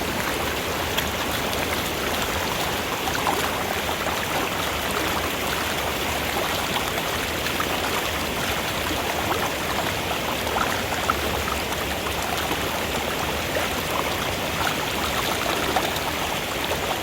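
Swollen creek in flood, its water rushing past in an even, unbroken hiss.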